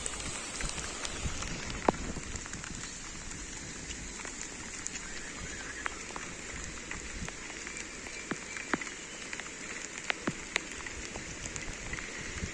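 Steady rushing water noise with scattered sharp ticks, the strongest just before two seconds in and twice around ten seconds in.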